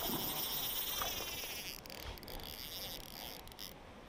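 Manic Tackle Liquid fly reel's ratchet buzzing hard as a freshly hooked trout pulls line, a long high-pitched whirr for almost two seconds, then shorter bursts as the fish is played.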